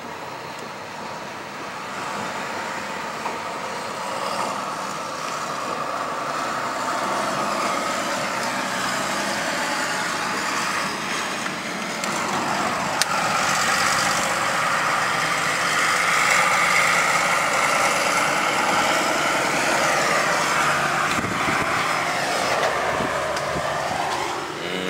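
Pickup truck engine running steadily, its pitch slowly rising and falling, growing louder about halfway through.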